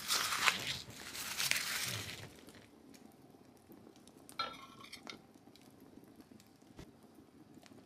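Bread crumbled by hand on a wooden table, a dry crackling rustle for the first two seconds, then quieter scattered clicks of spoons against porcelain soup plates, with one short ringing clink about halfway through.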